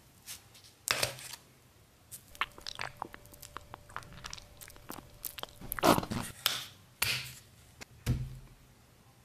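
A plastic squeeze bottle of sunscreen is worked by hand, with crackly clicks and wet squelches as the white lotion squirts out onto sand. The loudest squelch comes about six seconds in, and there is a dull thump near the end.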